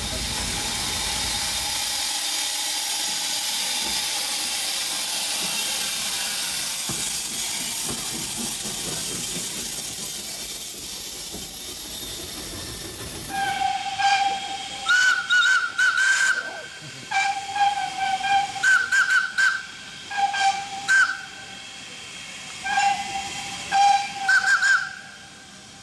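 Steam locomotive hissing steam, which fades out after about ten seconds, then a string of short, repeated blasts on its steam whistle, some in quick pairs.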